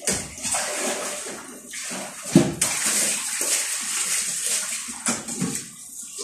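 Chicken and potatoes boiling hard in broth under a glass lid, a steady bubbling hiss with one sharp knock about two seconds in.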